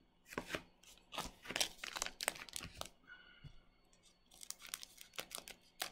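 A plastic trading-card pack wrapper crinkling as it is handled and snipped open with scissors: a run of short crackles and snips, with a brief pause a little past the middle.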